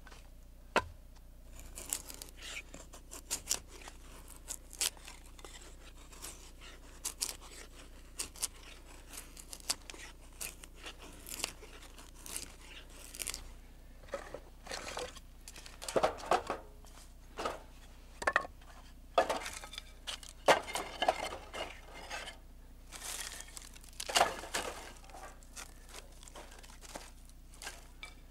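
Firewood being shaved and split into kindling with a blade: irregular short scraping, tearing and cracking strokes, coming in clusters with pauses between them, as curls of wood are cut and sticks are stacked in a steel fire pit.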